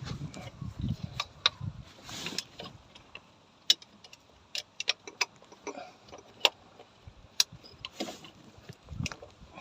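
Hand tools clicking and tapping against metal, a socket and wrench at work on the starter motor's bolts under the car, in a handful of separate sharp clicks with a low rumble of handling in the first two seconds.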